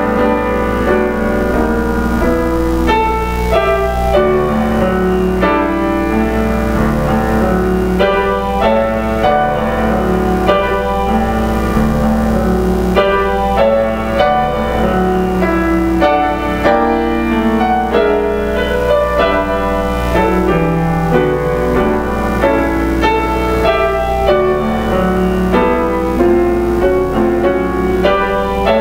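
Solo piano playing a continuous piece, chords and melody notes sounding one after another without a break.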